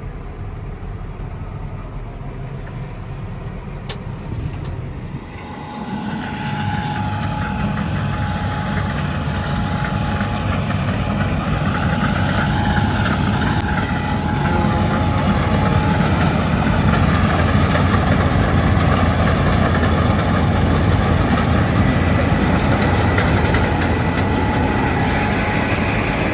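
Combine harvester running. It gets louder and fuller about six seconds in, with a steady whine over the engine.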